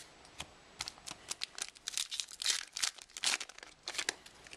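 Foil wrapper of a trading card pack crinkling and tearing as it is handled, a rapid run of sharp crackles that starts about a second in and stops near the end.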